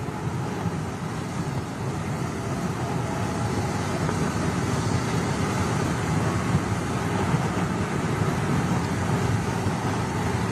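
Steady road noise of a car driving along a paved road: tyres and engine running evenly, growing a little louder a few seconds in.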